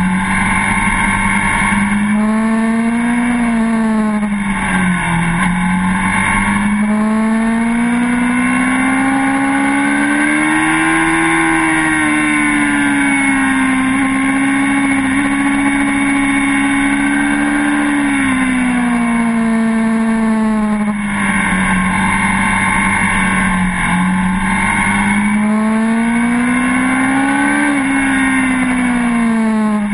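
Suzuki GSX-R750's inline-four engine heard from a camera mounted on the bike. Its pitch rises under acceleration and falls off when the throttle is closed, several times over, with one long climb held for several seconds mid-way.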